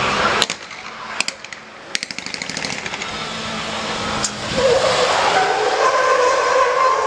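Cars driven hard on asphalt, tyres squealing and engines running. The sound drops off sharply about half a second in, leaving a quieter stretch with a few sharp clicks. A loud, wavering tyre squeal comes in about halfway through and holds.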